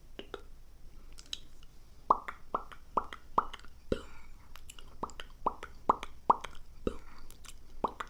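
ASMR mouth sounds: a run of short pops about two a second, in groups of four or five with a short pause between.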